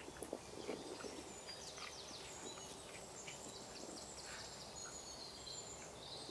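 Faint birdsong: repeated high chirps and short whistles, with a few soft squishes of rice and pongal being mixed by hand.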